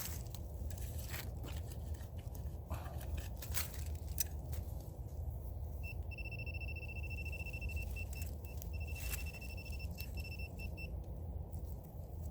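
Scraping and clicking from digging among rocks, then a metal detector sounding a steady high target tone for several seconds, broken once briefly: a metal target is still down in the hole.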